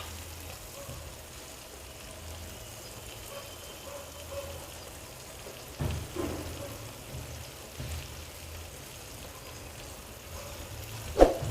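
Food in a frying pan sizzling faintly over a low flame, with a few soft knocks about six and eight seconds in. Near the end comes a sharp metallic clank, the loudest sound.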